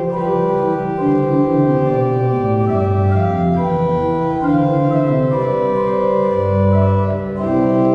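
Organ music: slow, sustained chords with a low bass line, the chords changing about every second.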